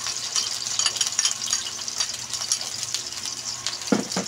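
Sliced onion and garlic sizzling and crackling in hot cooking oil in a wok, with a sharp clink at the start as the garlic is pushed off a ceramic saucer with tongs. A brief low sound near the end.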